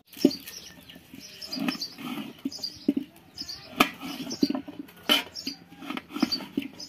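Kitchen knife slicing small green cluster figs on a metal plate, the blade knocking sharply on the metal several times as each fig is cut through. Small birds chirp in the background.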